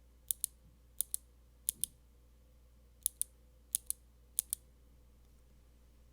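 Custom Tomu Nunu mechanical keyboard with lubed Marshmallow linear switches, an FR4 half plate and GMK keycaps: six keystrokes, each a sharp click on the way down and a second click on the way back up. They come in two sets of three, with a pause of about a second between the sets.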